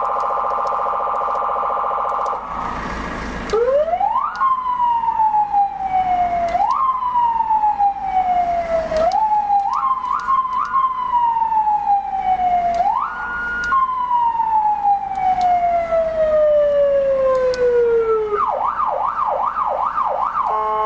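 STBS 150 W electronic siren running through its tones. First comes a steady horn-like tone, then a noisy burst about a second long. Next is a wail whose pitch shoots up and then falls slowly, several times over, and about two and a half seconds before the end it switches to a fast warble of roughly three to four swings a second.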